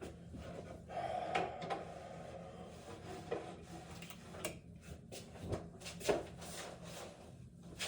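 Handling noise while things are gathered up and moved: rustling with a string of knocks and clacks spread through it.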